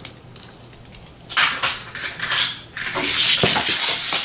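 Die-cast toy car running along plastic race track, a hissing, rattling clatter that comes in irregular bursts from about a second in and runs nearly without a break near the end, after a few faint clicks.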